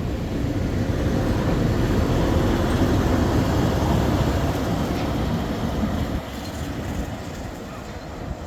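NSW C32 class steam locomotive 3265 working its train out of the station, the locomotive and carriages moving. The sound swells through the middle and drops away after about six seconds.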